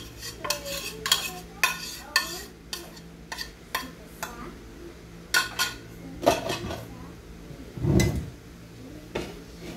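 Metal spoon scraping and clinking against a plastic bowl as salad dressing is spooned out, in a quick string of clicks and scrapes. About eight seconds in comes a louder, deeper thump as the bowl is set down on the counter.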